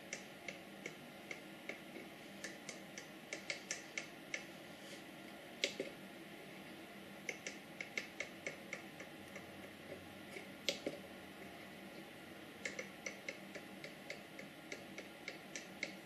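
Detent clicks of a 16-position rotary encoder on a Mikroelektronika Rotary click board, turned by hand: faint clicks in irregular runs, with a few louder ones and a short pause about two-thirds of the way through.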